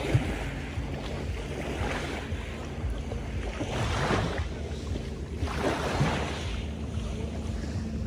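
Small Black Sea waves washing and lapping against a concrete breakwater, each wash swelling and fading every couple of seconds, with wind rumbling on the microphone.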